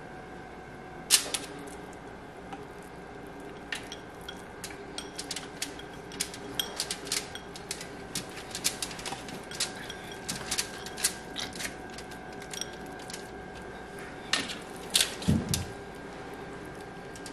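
Scattered light clicks and taps of small ceramic bowls and fingernails against a foil-lined tray as hands press raw pork slices into the bowls, with a heavier knock near the end, over a faint steady hum.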